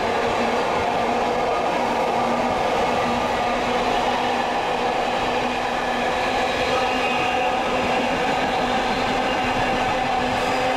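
Diesel train running with a steady engine drone, even in level throughout.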